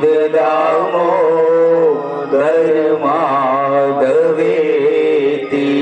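A voice singing a devotional chant in long held notes that waver and ornament the melody, over a steady low drone.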